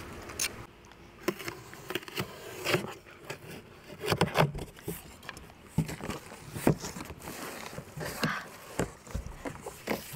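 Cardboard shipping box being opened and unpacked: irregular rustling, scraping and knocking of cardboard and packaging, with no steady rhythm.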